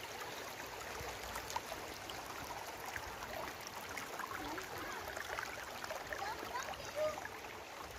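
Shallow river water running over and between stones: a steady babble with small gurgles and trickles.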